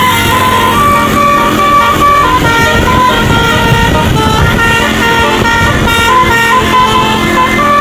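Tour bus telolet horn of the Basuri type playing a tune of held notes that step up and down, loud and without a break.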